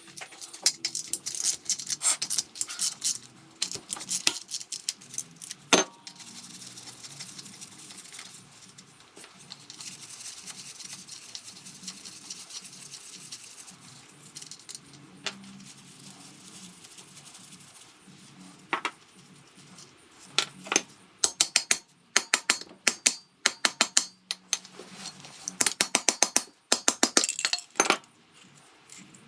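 Hand tools clinking and rattling on metal as a wrench is worked on a Vespa PX150E engine's seized output shaft nut, in clusters of rapid sharp clicks near the start and again over the last third. In between there is a steady hiss from the oxyacetylene torch heating the nut.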